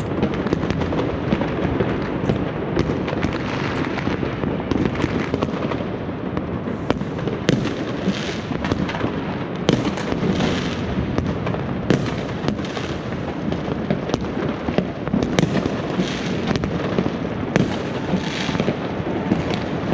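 Many fireworks going off at once around a city: sharp bangs overlapping on a continuous bed of crackling, with louder bursts of crackle every couple of seconds.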